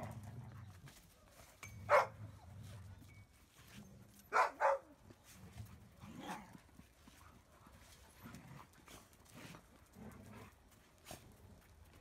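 Doodle dogs barking in short sharp yaps: one about two seconds in, a quick pair a couple of seconds later, then a weaker one, with low rumbling sounds in between.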